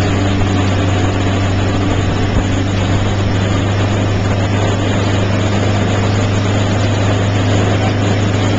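Motorboat engine running steadily at speed, a constant low drone, with the rushing churn of the boat's wake, heard from aboard at the stern.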